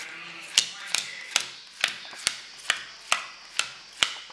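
Playing cards dealt one at a time onto a pile, each landing with a sharp snap, about two a second.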